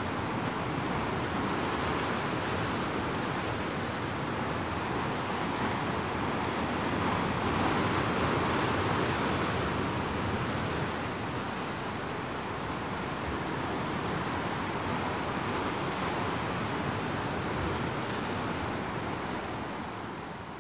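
Rough winter surf of the Sea of Japan breaking and churning among rocks: a continuous rush of water that swells louder about halfway through and fades out at the very end.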